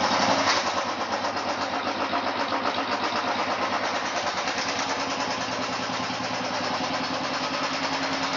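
Royal Enfield single-cylinder four-stroke motorcycle engine, freshly started, idling steadily with an even beat. Its idle screw is set a little high, so it runs at a slightly raised idle.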